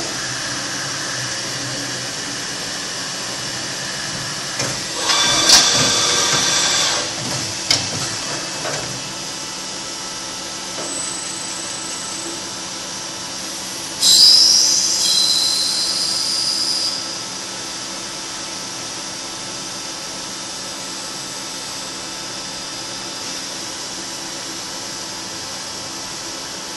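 MTE BF4200 CNC bed milling machine running with a steady mechanical hum. It is broken by two loud hissing bursts, about five seconds in and about fourteen seconds in, the second with a rising whine, as the universal head turns from vertical to horizontal.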